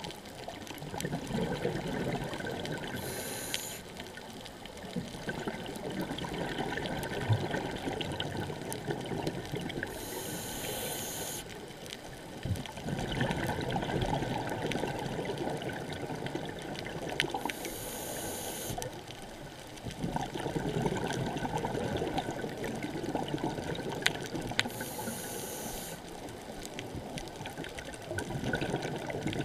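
A scuba diver breathing through a regulator underwater: four short, high hissing inhalations about seven seconds apart, each followed by a long rush of exhaled bubbles. A few sharp clicks are heard here and there.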